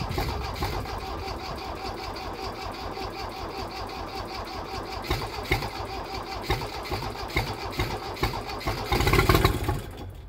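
The three-cylinder Kubota diesel engine of a 1982 Kubota L245DT tractor running just after a cold start, with an even, rapid beat of firing pulses. About nine seconds in it surges louder for a moment, then the sound drops away sharply at the end.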